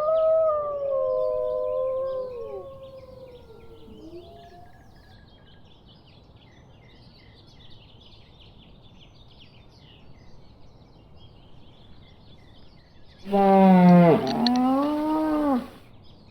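Two long gliding howling calls overlap, sliding slowly down in pitch and fading out about four seconds in, over faint continuous bird chirping. Near the end a loud, lower animal call lasting about two and a half seconds dips sharply in pitch and rises again.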